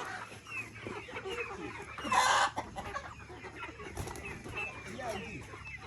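A flock of chickens clucking, with many short overlapping calls. A short loud burst of noise comes about two seconds in.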